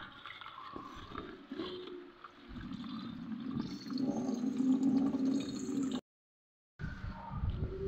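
Brine from salt-cured fesikh dripping and trickling back into a plastic bucket as the plastic-wrapped fish are lifted out and handled. The liquid noise swells about halfway through and cuts out briefly about six seconds in.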